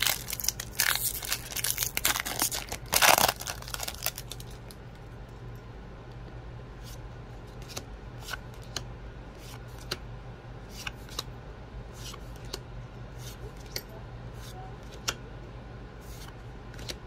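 A Magic: The Gathering booster pack's plastic wrapper crinkling and tearing open, loudest about three seconds in. Then cards are flicked one by one off the front of the freshly opened stack, a short sharp click every second or so.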